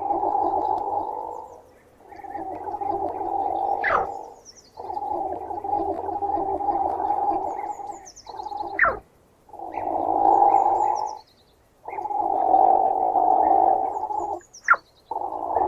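Platypus growling: a series of rough, low growls, each lasting one to three seconds with short pauses between. Three sharp falling squeaks cut in between the growls.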